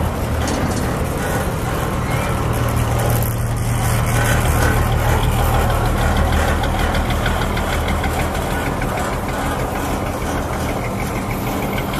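Engine of a small river ferry running steadily under way, a continuous low hum heard from on board.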